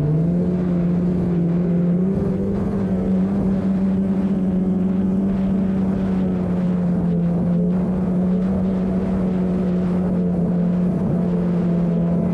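Polaris two-stroke snowmobile engine running at a steady speed, its pitch stepping up slightly about two seconds in.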